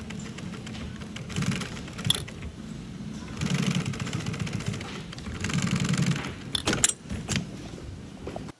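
Industrial sewing machine stitching nylon in short runs, louder in two spells of fast stitching, with a few sharp clicks near the end.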